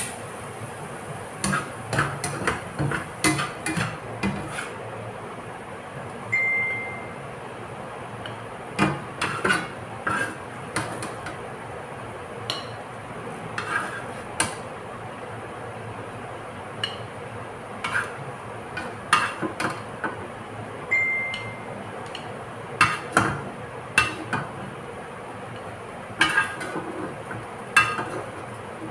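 Plastic slotted spatula scraping and knocking against a nonstick frying pan and a serving plate as cooked sweet potato leaves are scooped out, in irregular clusters of taps and clicks. A short high beep sounds twice, about fifteen seconds apart.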